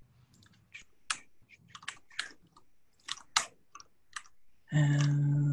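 Computer keyboard typing: irregular key clicks while commands are entered into a console. Near the end a loud, steady pitched hum starts and holds.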